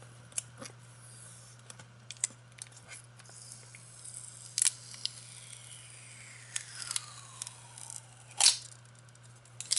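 Adhesive seal sticker being peeled off the bottom of a product box: scattered small crackles and clicks, with two louder ripping sounds about four and a half and eight and a half seconds in.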